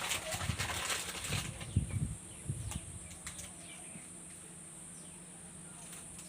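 Candy wrapper crinkling and rustling as it is handled, busy for about two seconds, then only a few faint crackles over a steady faint hiss.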